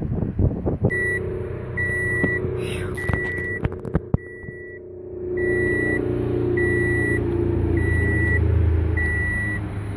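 A car's warning chime beeping steadily, a short beep a little more often than once a second, over the low rumble of the engine. A few sharp clicks and knocks come about three to four seconds in.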